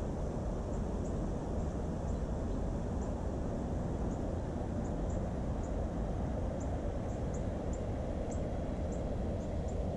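Steady low rush of a shallow river running over riffles, with short, high chirps of small birds scattered through it, a few a second.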